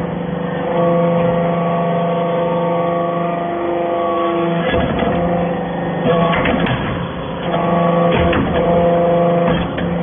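Hydraulic briquetting press for metal shavings running: a steady machine hum, with clanks about five seconds in and several more in the second half as the ram cycles into the hopper of chips.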